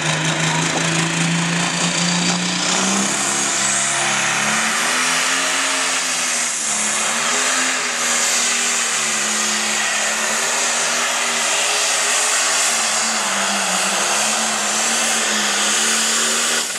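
Turbocharged diesel engine of a 10,000 lb John Deere pro stock pulling tractor at full throttle under load, pulling the sled. Its note steps up a couple of seconds in and then wavers as it pulls, with a high turbo whine rising over it.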